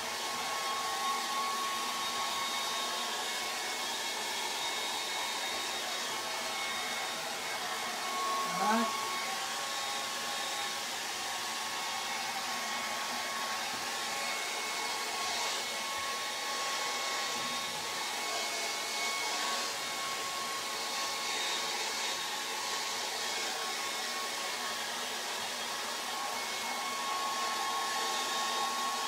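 Hand-held hair dryer blowing steadily, a motor whine over rushing air, drying a wet acrylic glaze over a charcoal drawing. A brief rising sound cuts in about nine seconds in.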